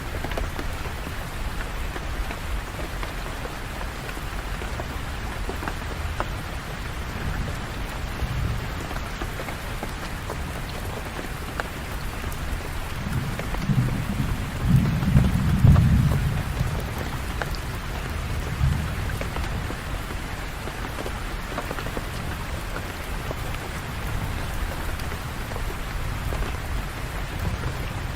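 Steady rain falling, with a low rumble of thunder swelling about halfway through and dying away over a few seconds.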